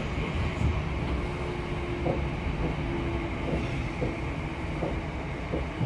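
Merseyrail electric train running along the track, heard from inside the carriage: a steady low rumble with scattered clicks from the wheels and a faint steady hum.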